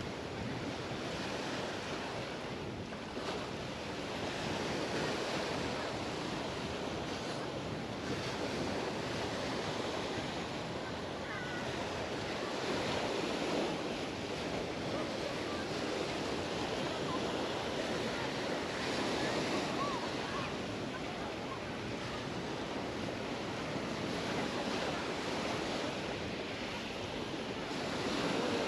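Mediterranean surf breaking and washing up the beach, a steady rushing hiss that swells and eases as each wave comes in, with some wind on the microphone.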